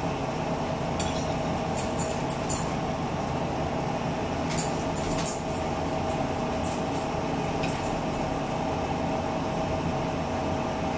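Steady room hum, with a few light clinks and taps of cutlery against plates scattered through it.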